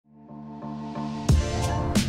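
Intro music: sustained chords fade in and change a few times, then a loud drum hit comes in just past a second in and a steady beat starts.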